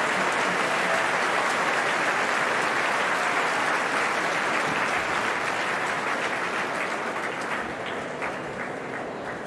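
Large opera-house audience applauding a curtain call: dense, even applause that gradually fades over the second half, thinning to scattered individual claps near the end.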